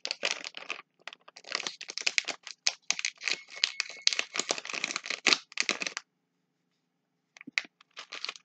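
Plastic candy wrapper of a Skittles packet crinkling and crackling as it is handled in the fingers: a dense run of crinkles for about six seconds, a short silence, then a few more crinkles near the end.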